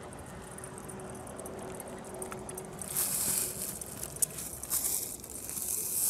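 Faint outdoor background, then from about halfway in, several loud bursts of rustling hiss with a single sharp click among them.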